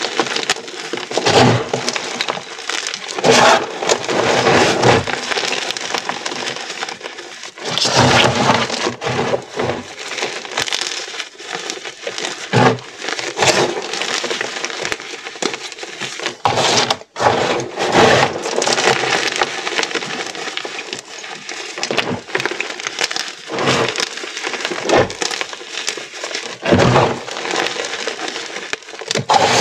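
Dyed gym chalk being crushed and crumbled by hand in a tray of chalk powder: dense crunching and crackling that swells with each squeeze, with a very short break about halfway through.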